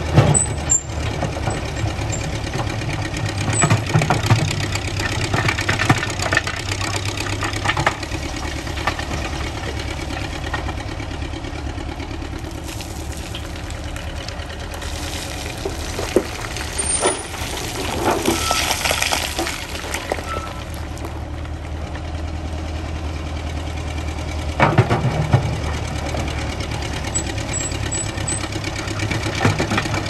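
Engine of a vintage Ruston-Bucyrus 19-RB cable excavator running steadily, with bouts of louder clattering and rushing noise as the machine works. The longest bout comes about halfway through.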